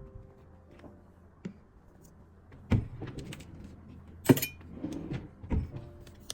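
A few knocks and metallic clinks of coffee-making gear being handled, the sharpest about four seconds in, with a duller thump near the end.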